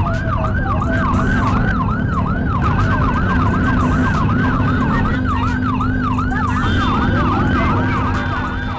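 Ambulance siren sounding a fast yelp, its pitch sweeping up and down about three times a second, over a steady low hum of engines.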